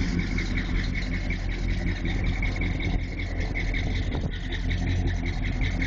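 The 455 V8 of a 1970 Oldsmobile Cutlass SX idling steadily, heard close at the exhaust outlets in the rear bumper: an even exhaust rumble, the engine "breathing".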